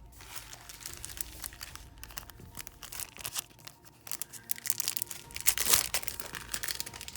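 Crinkly packaging of nail-art sticker sheets being handled, an irregular run of crinkles and rustles, loudest in a burst about five and a half seconds in.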